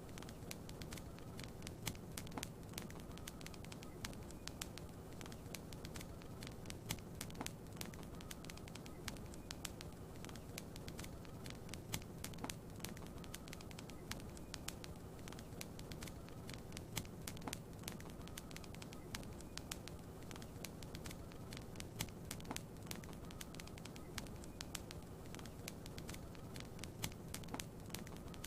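Wood fire crackling in a fireplace: frequent irregular small pops and snaps over a steady low background noise.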